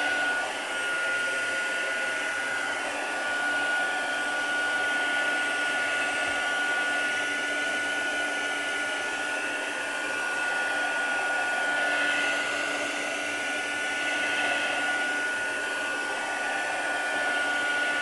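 Handheld electric blower running steadily to dry freshly painted work: a constant rush of air with a thin high whine from its motor.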